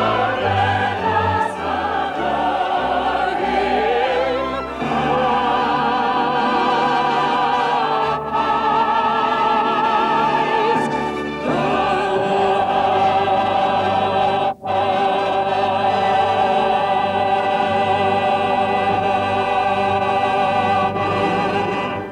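Operatic singing with wide vibrato over an orchestra, ending on a long final note held through the second half before the music stops.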